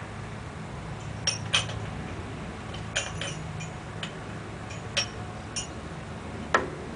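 A string of sharp, irregular metal clinks from rigging hardware being handled against the lathe, the loudest near the end. A steady low hum from the Oliver tractor's engine idling runs underneath.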